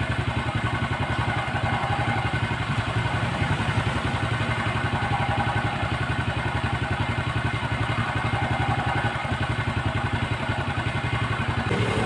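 Motorcycle engine idling steadily, with an even, fast pulse.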